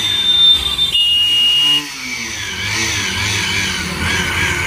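Motorcycle engine running and revved, rising and falling in pitch about a second in; the bike had refused to start and has just been fixed.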